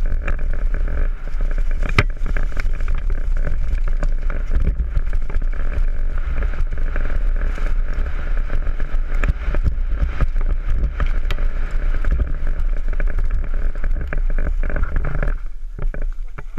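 Mountain bike running down a rough downhill trail, heard from a camera riding with it: a steady rumble of wind on the microphone under constant rattling and knocking from the bike over the ground, with one hard knock about two seconds in. About a second before the end the noise drops away sharply.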